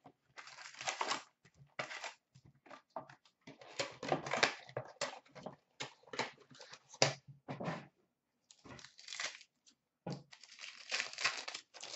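A cardboard hobby box being opened and hockey card packs unwrapped by hand. The wrappers tear and rustle in irregular bursts, with a short pause about eight seconds in.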